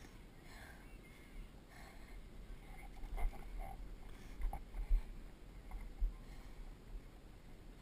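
Windsurfer under sail: low rumble of wind and water on a camera mounted on the rig, with a few dull knocks around the middle.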